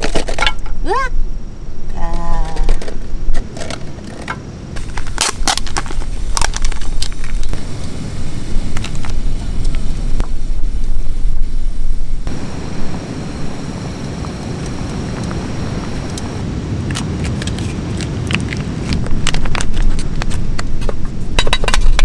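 Food being handled and cooked: a plastic retort pouch crinkles as soup with beef ribs is poured into a metal pan on a portable gas stove, with repeated clicks and clinks of utensils and cookware. From about halfway, a steadier background noise takes over.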